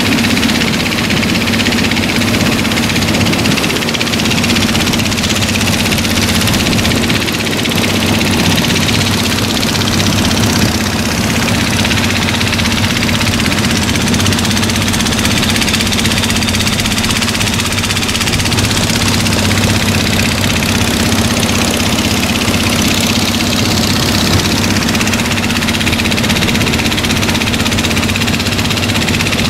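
An engine running steadily at an unchanging speed, loud, with a low even hum.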